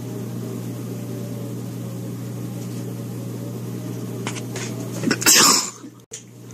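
A steady low electrical hum. About five seconds in, a short loud rush of breathy noise cuts across it.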